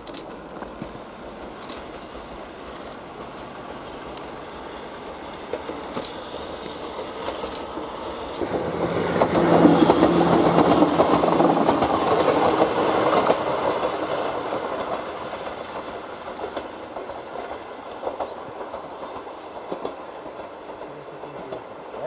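Former Nankai 21001-series two-car electric train running past close by. Its sound builds about eight seconds in, is loudest for around four seconds, then fades as the train moves away.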